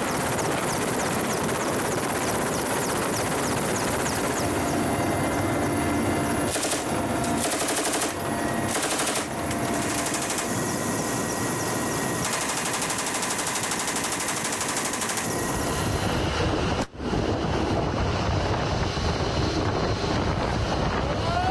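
Mi-8-type military helicopter's turbine engines and rotor running steadily, with bursts of machine-gun fire from a door-mounted gun in the middle stretch. A rising whine comes in near the end.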